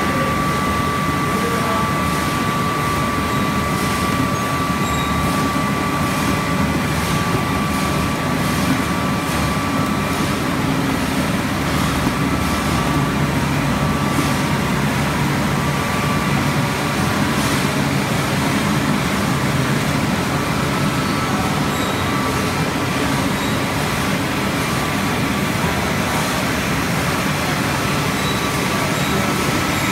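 Steady din of mandarin-juice processing machinery running: the peeling-line and inclined conveyors and a chopper-pulper machine. A thin steady whine sits over it through the first part, then fades.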